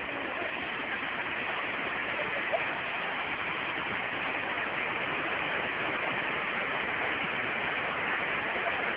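River water rushing over rocks in a small rapid, a steady even rush.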